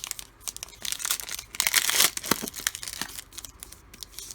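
Foil trading-card pack wrapper crinkling and crackling as it is handled, crumpled or torn, with the loudest burst about two seconds in.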